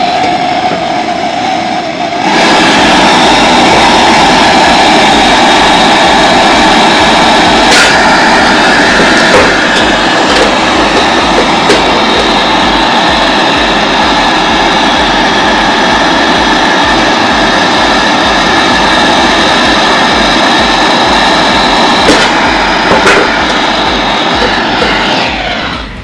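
Handheld gas brazing torch burning with a loud, steady hiss while it heats the copper suction-line joint on a refrigerator compressor. The hiss jumps up about two seconds in and falls away near the end.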